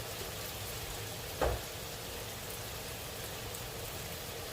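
Sautéed garlic, onions and tomatoes sizzling steadily in a frying pan, with a single dull knock about a second and a half in.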